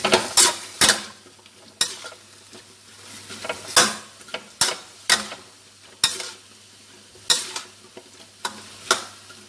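Stir-frying lotus stems with pork in a pan: a spatula scrapes and clanks against the pan in irregular strokes about once a second, over a low sizzle.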